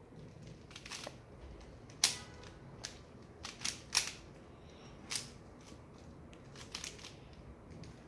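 Plastic 3x3 Rubik's Cube being turned quickly by hand: its layers click and clack in irregular runs, the loudest snaps about two and four seconds in.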